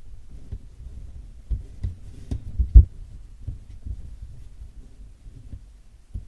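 Camera handling noise: a run of dull, low thumps and bumps over a faint low rumble, clustered from about one and a half to three seconds in, the loudest at the end of that run, with one more bump near the end.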